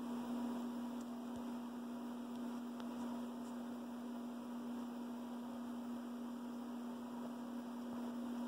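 A steady electrical hum: one unwavering low tone that does not change or stop.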